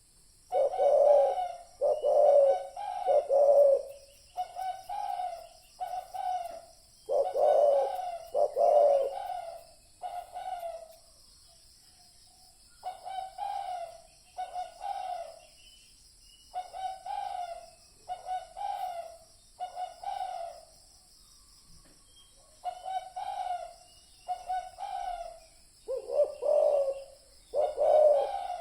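Spotted dove cooing in repeated phrases of deep coos. Loud groups of coos come near the start, around a third of the way in and near the end, with softer coos between and a couple of short pauses. A steady high-pitched hiss runs behind.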